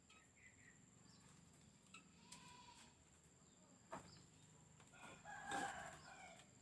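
A rooster crowing once, faintly, about five seconds in, over quiet background with a sharp click shortly before.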